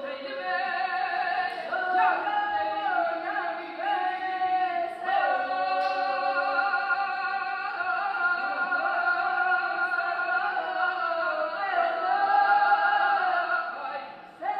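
Several voices singing together in long held notes that slide up and down in pitch, with a brief drop-off just before the end.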